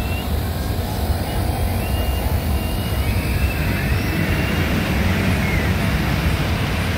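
Steady low rumble of fairground machinery around a turning flying-elephant ride, with a few faint high gliding tones over it.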